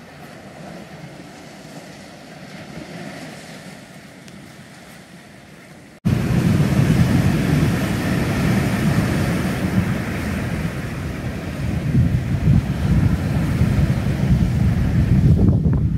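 Ocean surf washing onto a sandy beach, soft at first. About six seconds in it cuts suddenly to much louder breaking waves with wind buffeting the microphone.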